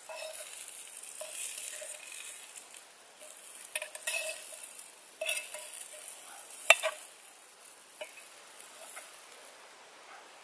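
Asparagus sizzling in a small frying pan. Several sharp clicks come as the spears are lifted out, the loudest about two-thirds of the way through.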